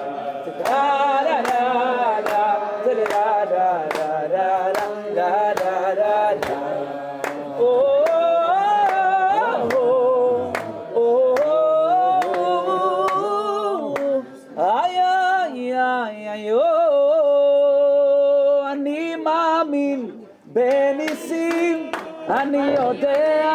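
A man singing a Jewish song unaccompanied, with a crowd clapping along on the beat at the start and again near the end. About two-thirds of the way through he holds one long note.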